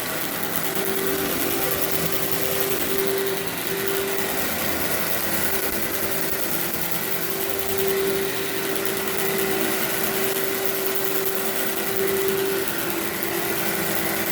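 Workhorse vacuum cleaner running steadily on carpet, its motor giving a constant whine, with small swells in loudness about eight and twelve seconds in.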